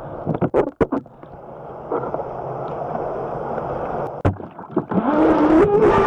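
Onboard sound of a Streamline RC Thrasher jet boat. A few sharp knocks come as the hull is handled, then rushing water builds as the boat goes in. From about five seconds in, the electric jet drive whines, rising in pitch as it spools up.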